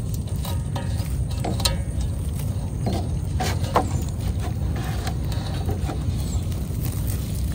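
Steady low rumble, with scattered rustles and short clicks as a green nylon mesh fish trap is pulled open and handled by hand.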